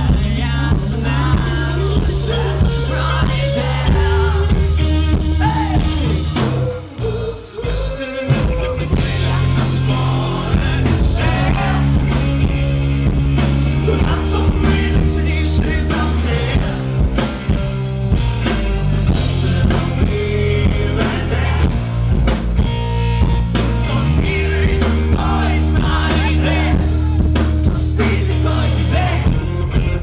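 Live rock band playing loudly: electric guitar, bass guitar and drums, with a singer's vocals over them. The music drops out briefly about seven seconds in, then comes straight back.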